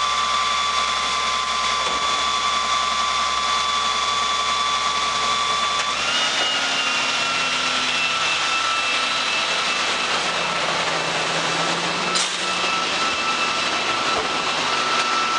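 GMC Topkick trash truck with a NEW-WAY Mamba side-load body running at a standstill, with a steady mechanical whine over the engine noise. About six seconds in the whine shifts to a different pitch, and a single sharp knock comes near the end.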